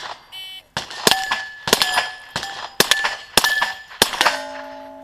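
A shot timer's start beep, then a fast string of rifle shots at Steel Challenge plates, each hit answered by the clang and ring of the steel. The last plate keeps ringing after the final shot.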